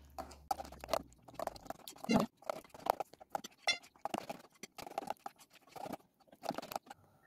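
Metal spoon beating thick pancake batter in a glass bowl, mixing in oil: irregular taps and clicks of the spoon against the glass with wet slaps of the batter.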